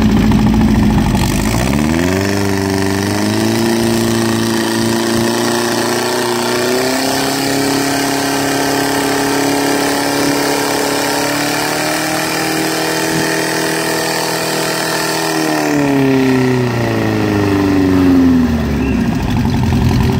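Portable fire pump's engine revving up about two seconds in, holding high, steady revs under load while it drives water through the hose line, then dropping back toward idle near the end.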